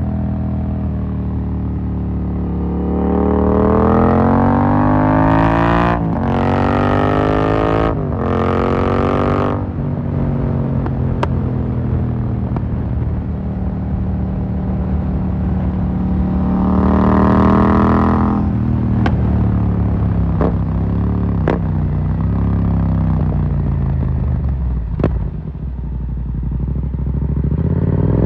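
Yamaha MT-07's 689 cc parallel-twin through an Akrapovic carbon full exhaust, accelerating hard and rising in pitch through two quick upshifts, then a second pull a little past halfway. As it slows, it pops and crackles on the overrun.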